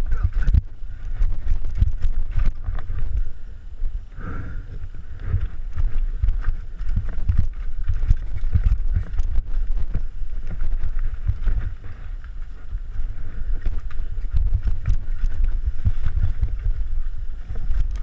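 Downhill mountain bike clattering and knocking as it rides over rocks, under a steady rumble of wind buffeting the camera microphone.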